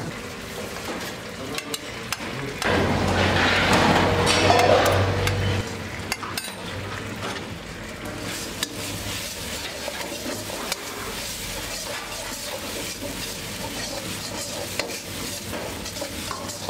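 Kitchen background noise: a steady hiss with a low hum, louder for about three seconds a few seconds in, with scattered light clinks of stainless-steel bowls.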